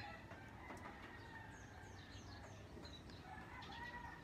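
Faint backyard ambience: a distant rooster crowing, with a few quick falling chirps from small birds in between.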